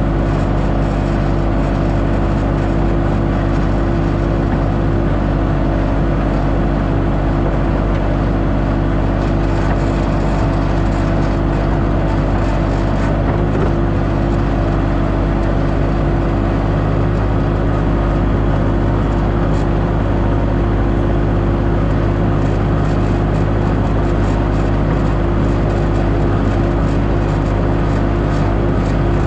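Diesel engine of a skid-steer loader or excavator running steadily at an unchanging speed.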